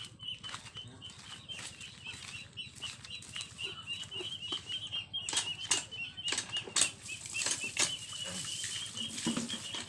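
Hand-operated water pump being worked, its handle and spout giving irregular sharp knocks, the loudest about seven seconds in, over a constant rapid high-pitched chirping.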